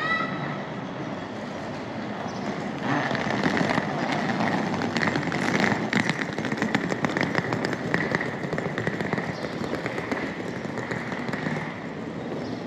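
Hard wheels of a rolling suitcase rattling over cobblestones, a fast, uneven clatter with a steady whine, starting about three seconds in and stopping near the end.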